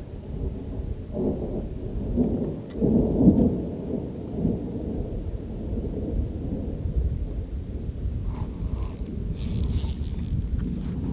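Uneven low rumble of wind buffeting the camera microphone, then, about nine seconds in, a fishing reel whirring with a high, rattly ring.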